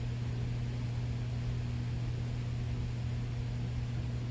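Steady low hum with an even hiss over it, unchanging throughout: constant background noise of the room or recording.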